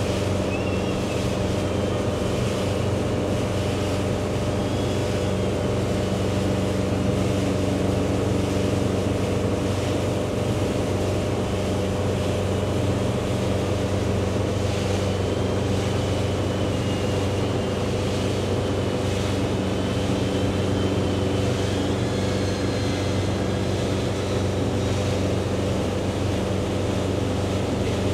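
Motorboat engine running steadily at speed, with rushing water and wind on the microphone. A faint high whine wavers in pitch above it.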